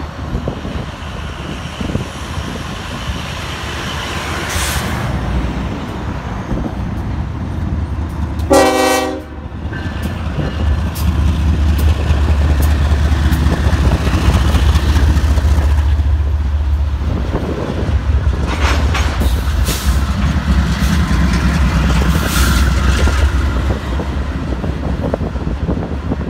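Freight train passing close below: a short blast of a locomotive's multi-note air horn about a third of the way in, then the low rumble of a BNSF diesel locomotive's engine going by. After that come rolling intermodal cars with a few sharp metallic clanks.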